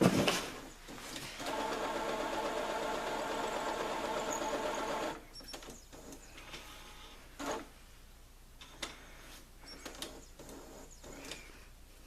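Brother inkjet printer running a head-cleaning cycle: a knock at the start, then its motor whirring steadily for about four seconds, followed by scattered clicks and ticks as the mechanism moves.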